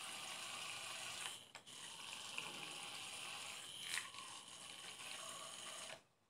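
Hand-held immersion blender running steadily in a bowl of strawberries and milk, churning the liquid. It dips briefly about a second and a half in, then cuts off abruptly near the end as it is switched off.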